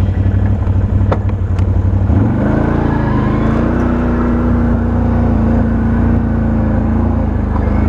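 Can-Am Outlander 1000 XT-P ATV's V-twin engine running under way. It picks up revs about two seconds in, then holds a steady, higher pitch.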